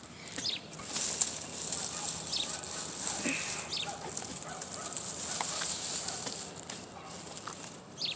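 Grass rustling as it is pushed and parted by hand, starting about a second in, with a few brief high chirps.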